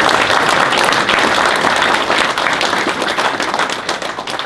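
Audience applauding, many hands clapping together, the applause dying away near the end.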